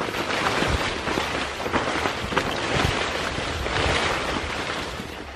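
Tall leafy plants rustling and swishing close to the microphone as someone pushes through them, with many short crackles of leaves and stalks.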